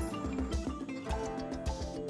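Background music with plucked guitar-like strings over a steady beat.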